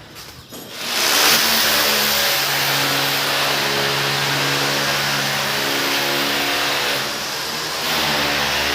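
A motor-driven machine starts up about a second in and runs steadily: a loud hiss over a steady hum, easing off briefly near the end.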